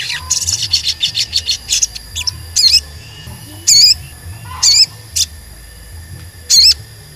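Male olive-backed sunbird (sogon) calling: a fast run of sharp high chirps for about the first two seconds, then five loud, wavering whistled "cuit" notes spaced about a second apart.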